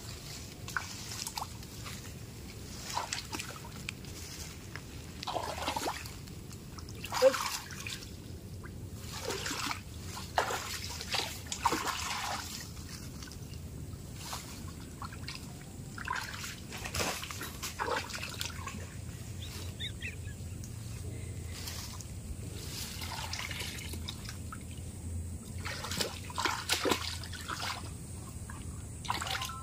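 Shallow muddy stream trickling, with irregular splashes and sloshes as hands grope through the water along the bank; one louder splash about seven seconds in.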